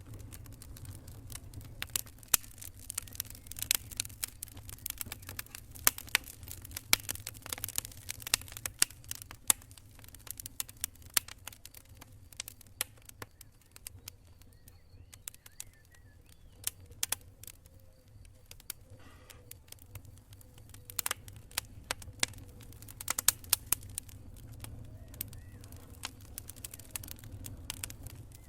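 Wood campfire crackling and popping in irregular bursts of sharp snaps over a steady low rumble. The pops come thickly for the first dozen seconds, thin out for a stretch past the middle, then pick up again.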